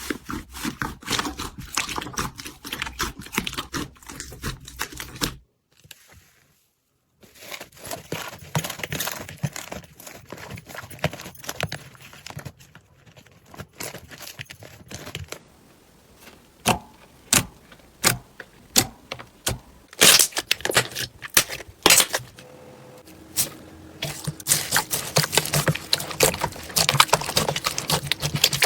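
Slime being squeezed and poked by hand, with dense crackling and popping clicks and a few sharper pops. A brief silent gap about six seconds in.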